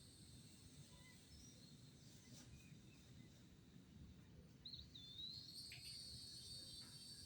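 Faint outdoor ambience: a steady high-pitched insect drone, growing louder a little past halfway, with a short bird-like chirp just before it swells and a few faint rustles.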